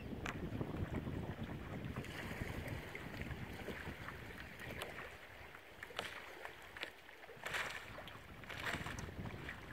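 Wind buffeting the microphone with a low rumble that eases about halfway through, over small splashes of water lapping at the rocks.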